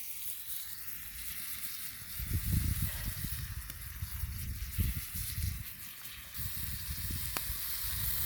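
Ground beef sizzling in a pan over a campfire, a steady hiss, with irregular low rumbles from about two to six seconds in.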